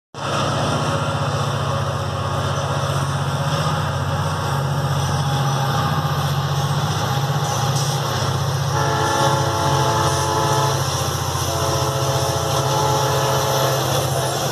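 A pair of GT22 diesel-electric locomotives passing with a steady low engine drone, followed by freight wagons rolling by. About halfway through, a steady high tone of several pitches joins in and holds.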